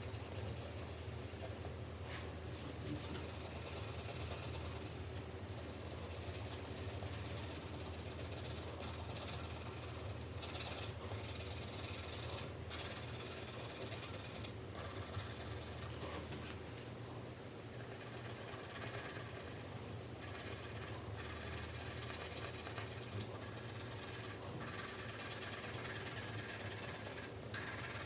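4B graphite pencil scratching on paper in continuous back-and-forth shading strokes, broken by brief pauses every few seconds. A steady low hum runs underneath.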